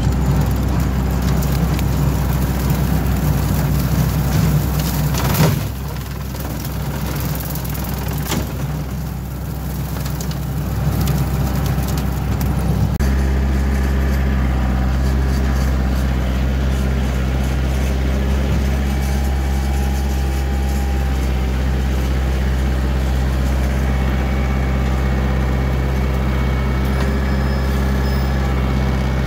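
Kioti DK45SE compact tractor's diesel engine running steadily, heard close up from the machine; the engine note changes and then holds about thirteen seconds in.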